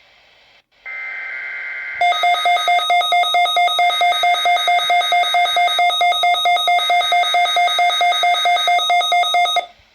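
A short burst of SAME digital alert data, just over a second long, followed by a weather alert radio's alarm beeping in rapid, even pulses for about seven and a half seconds. It is the receiver's warning alarm set off by an incoming alert.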